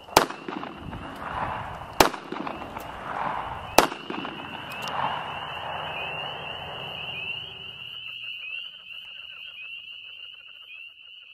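Three gunshots, sharp and echoing, about two seconds apart, over a steady high chirping chorus of insects or frogs that runs on after the last shot.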